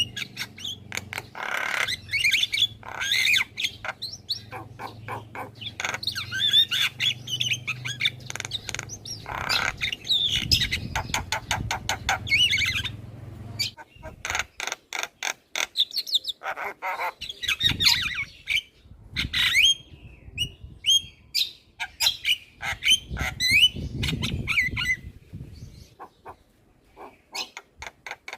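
Javan myna chattering nonstop: a fast, varied run of harsh squawks, clicks and short whistled notes with barely a pause.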